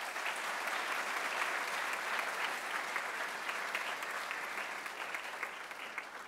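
Audience applauding: dense, even clapping that begins to tail off near the end.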